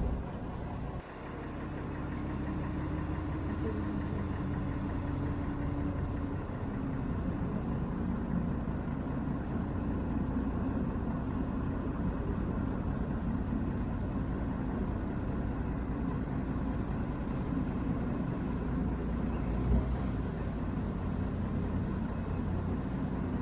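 Tour boat's engine running steadily, a low hum that comes up in level about a second in, with a brief low thump about twenty seconds in.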